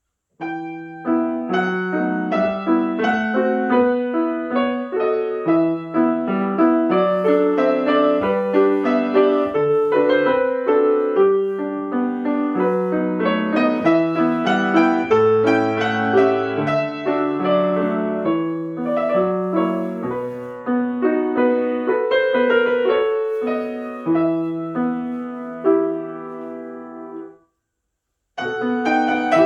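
Solo piano playing a classical piece in a steady, flowing stream of notes. The playing breaks off for a moment near the end, then resumes.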